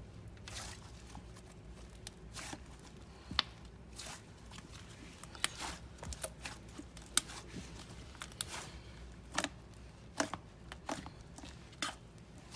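Slime being squished and poked by hand, giving irregular clicks and pops, some sharper ones around three and a half, seven and ten seconds in.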